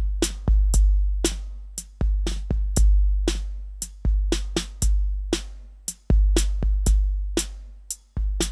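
808-style electronic drum kit (Addictive Drums' "Tape 808" kit) played live from a piezo-triggered drum pad: deep bass-drum hits that ring out for up to about a second and a half, with sharp snare and hi-hat hits between them, in a steady groove.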